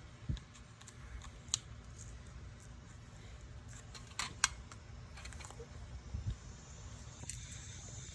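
Scattered small clicks and taps of hand work with masking tape and a razor knife: about half a dozen sharp ticks, two close together about four seconds in, over a low steady background.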